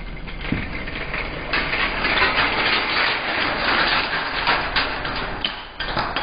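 Dry penne clattering out of a stainless steel bowl into a pot of boiling water, with stray pieces spilling and skittering onto the stove grates and counter, over the rush of the rolling boil.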